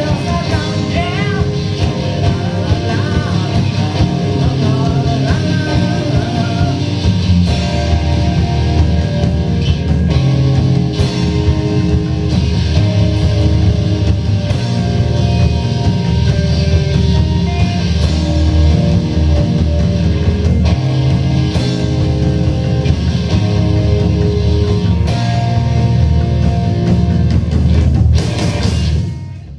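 A live rock band playing a song, with singing over electric guitar, bass and drums; the song ends with a final crash just before the close.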